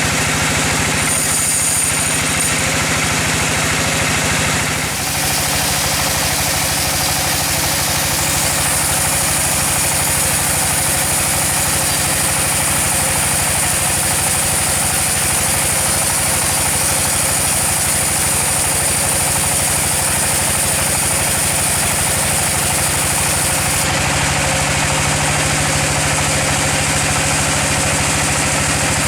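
Sawmill machinery running steadily with an engine drone. The sound shifts about five seconds in, and again about five seconds before the end.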